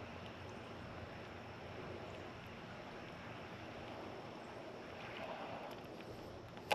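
Faint, steady wind noise on the microphone, with one sharp click at the very end.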